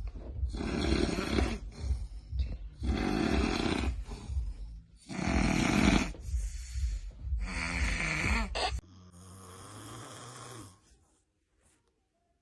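A person snoring loudly: four rough, fluttering snores about two seconds apart. A fainter, steadier sound follows for about two seconds, then silence for the last second or so.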